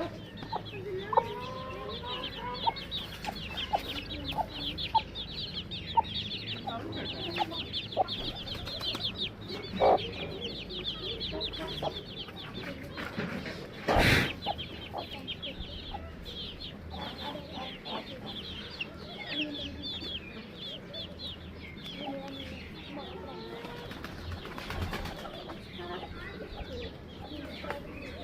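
Mixed farm birds: chickens clucking, with many small birds chirping high and fast throughout. A brief loud rustle comes about halfway through.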